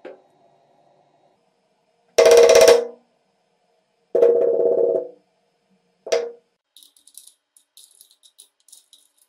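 Three loud blows of a claw hammer, its face padded with a cap of hot glue, striking a wooden plank, each ringing briefly. They are followed by a run of light, quick clicks from a ratcheting ring wrench turning a nut on a bolt.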